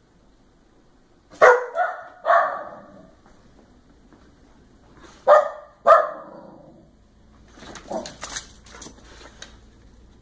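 A medium-sized dog barks four short times in two pairs, looking up and barking for the food bowl held over it. A few softer clicks and rattles follow near the end.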